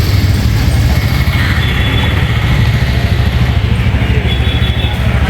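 Steady low drone of an idling engine, running on without a break.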